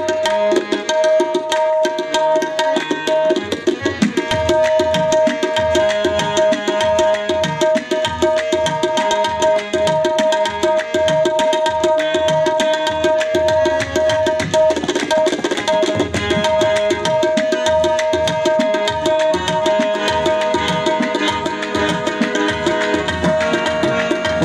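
Qawwali ensemble playing an instrumental passage: harmoniums hold a steady drone and melody over a fast, busy hand-drum rhythm.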